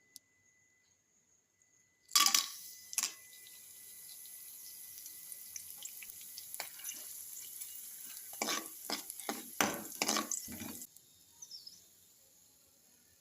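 Kitchen tap running into a sink for about nine seconds, with a few clatters of dishes or utensils near the end, then shut off abruptly.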